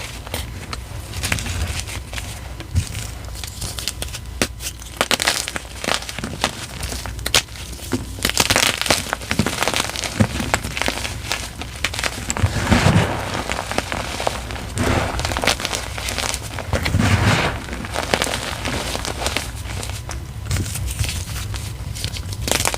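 A block of gym chalk topped with dried glitter and paint being crushed: a run of sharp crackling clicks with several louder, longer crunches in the middle stretch.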